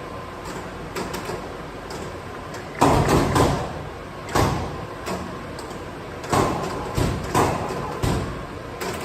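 Washino PUX-25 air-clutch mechanical press running: a steady motor and flywheel hum, broken by about nine irregular heavy clunks as the clutch engages and the slide strokes. The loudest clunks fall about three seconds in.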